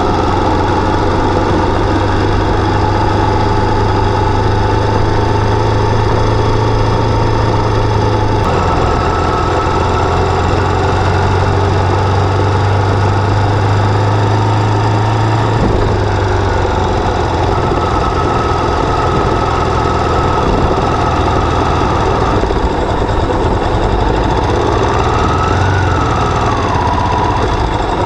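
Enduro motorcycle engine running steadily while riding, its note shifting a couple of times, about 8 and 16 seconds in.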